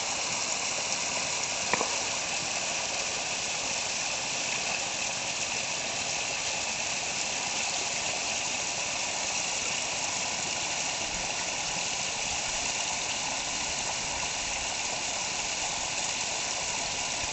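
Steady rush of falling water from a small waterfall over bedrock, with a faint click about two seconds in.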